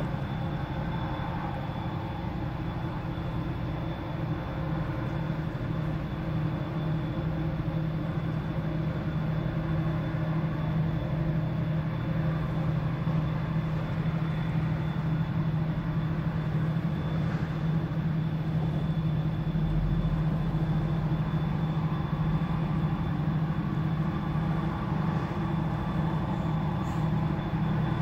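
Steady mechanical hum of a vertical-lift railroad bridge's drive machinery running as the span moves, with a thin high whine over a low drone, growing a little louder partway through.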